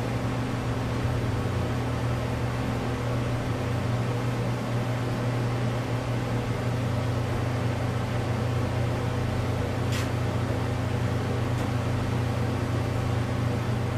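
Nifty Lift's motor running steadily with a low, even hum while it holds and lifts a heavy load. There is a brief click about ten seconds in and a fainter one shortly after.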